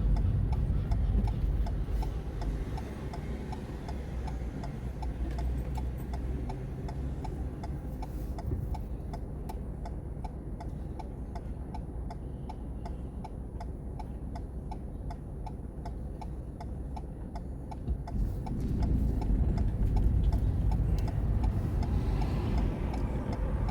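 A car's turn-signal indicator ticks steadily inside the cabin over a low engine and road rumble. The rumble drops while the car waits, then swells again about three-quarters of the way through as it pulls off.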